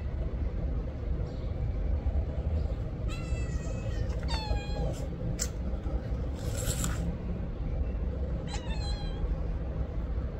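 A cat meowing three times, about three seconds in, about four and a half seconds in and near nine seconds in, the longer later meows falling in pitch. A steady low rumble runs underneath, with a short burst of noise about halfway through.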